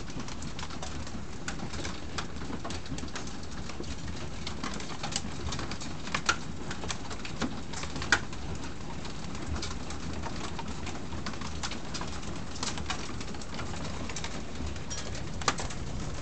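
Small hailstones striking a wooden deck: irregular sharp ticks over a steady hiss, with a few louder single hits.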